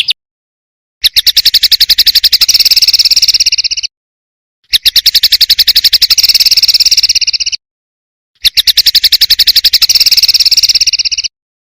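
A songbird's rapid buzzing trill, repeated in three bouts of about three seconds each. Each bout is a fast, even run of high pulses, and the bouts are cut apart by about a second of complete silence.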